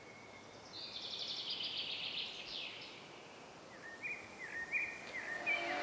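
Faint rural ambience with birdsong: a fast, high trill for about two seconds, then a run of short chirps that rise and fall in pitch.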